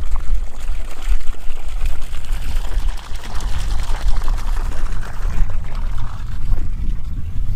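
Water gushing steadily from the end of a drum siphon pump's outlet pipe and splashing onto the ground below, showing the pump is still running, over a steady low rumble.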